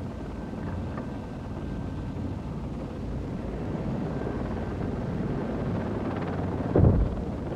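H-60 helicopter turbine and rotor noise heard from inside the cabin: a steady low drone with a fast flutter. There is a brief, louder low thump near the end.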